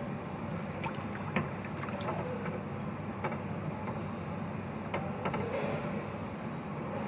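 Water moving in a fish-spa tank: a steady churning noise, with scattered light clicks and taps.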